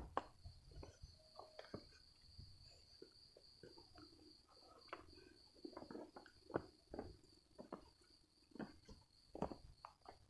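Faint, irregular footsteps of a hiker's shoes scuffing on a rocky, leaf-littered trail on a steep climb, over a steady high-pitched insect trill.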